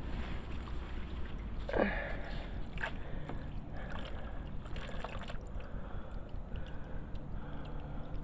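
Pond water pumped through a homemade sump filter, trickling and gurgling steadily over a low hum, with a few short splashes and a brief falling squeak about two seconds in.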